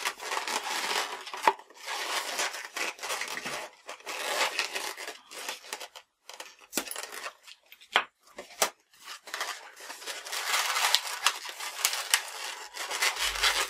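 Inflated latex modelling balloon (a green 160) rubbing and squeaking against fingers and itself as its bubbles are tied and twisted. About halfway through there are a few sharp scissor snips as the leftover tail is cut off.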